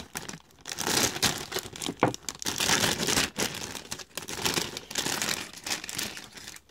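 Clear plastic bags holding plastic model-kit runners crinkling as they are handled and lifted out of the box, an irregular run of crackles.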